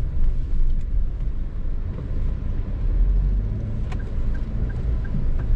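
Car cabin drone from engine and road while driving. About four seconds in a click is followed by a turn-signal indicator ticking about three times a second.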